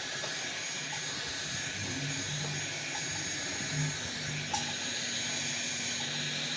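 Heat gun on its low setting blowing a steady hiss of hot air, with a faint high whistle in it and one short click about four and a half seconds in.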